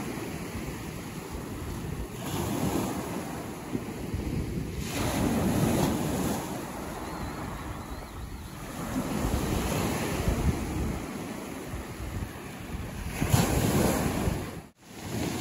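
Surf breaking and washing up a shingle beach, the waves swelling about every three to four seconds, with wind buffeting the microphone.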